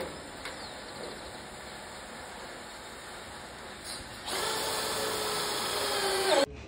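Cordless drill driving a hex-head screw into a galvanized steel stud. The motor runs steadily, gets louder about four seconds in, then stops abruptly near the end.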